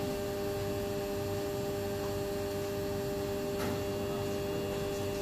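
Steady mechanical hum with one constant tone over a low even noise, unchanging throughout.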